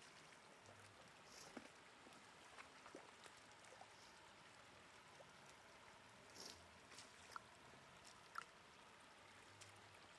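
Faint splashing and trickling of shallow muddy water as boots and hands move through it, with a few small sharp splashes in the second half.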